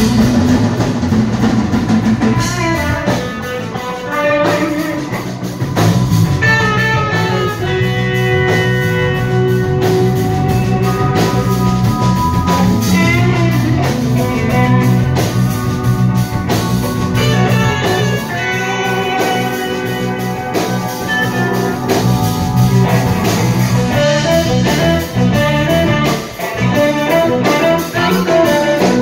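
A band playing guitar-led music with a drum kit keeping a steady beat.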